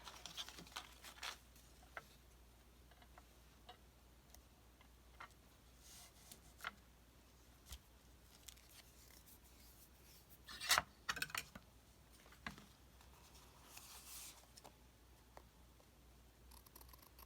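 Scissors cutting paper and paper being handled: sparse quiet snips, rustles and clicks, with a louder cluster about eleven seconds in.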